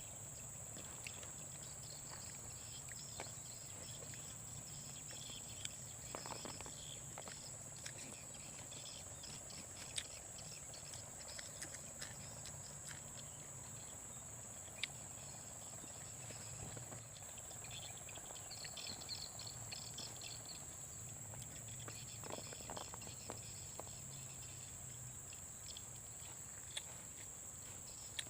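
Tropical forest insect chorus: a steady high-pitched insect drone, with patches of fainter chirping calls and scattered sharp clicks.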